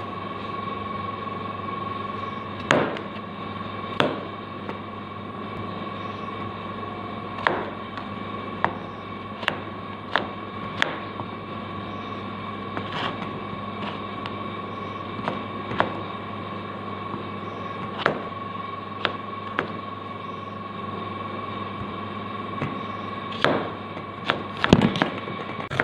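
Kitchen knife cutting potatoes and onion on a wooden cutting board: irregular sharp knocks of the blade hitting the board, a quick run of them near the end. A steady hum underneath.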